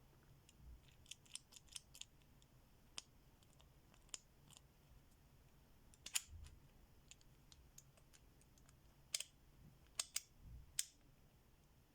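Hand ratchet clicking as it is worked, in irregular sharp clicks: a quick run of about six in the first two seconds, then single clicks and close pairs every second or so.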